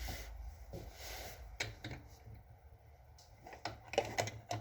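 Scattered small clicks and taps from light handling, several in quick succession near the end, with the drill press switched off.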